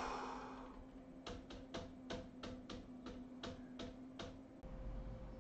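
About ten quick, sharp clicks, roughly three a second, from clicking through presentation slides on a computer, over a faint steady hum.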